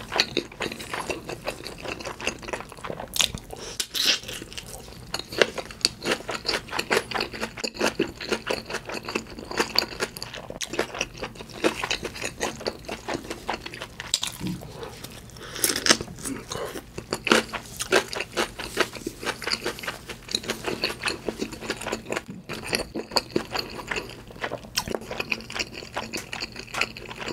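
Close-miked chewing of a mouthful of food, with many small wet clicks and crunches. A pickled yellow pepper is bitten and crunched around the middle.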